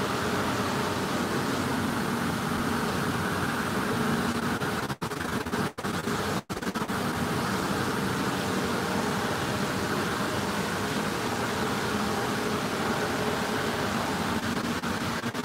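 Perodua Myvi 1.5 with a bolt-on turbo idling steadily on a chassis dyno, heard as a constant rushing hiss with no revving. The sound drops out briefly three times around the middle.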